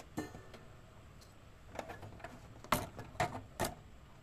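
Light clicks and knocks of hands and a small tool handling an electronics circuit board: a few soft taps, then three sharper knocks about half a second apart in the second half.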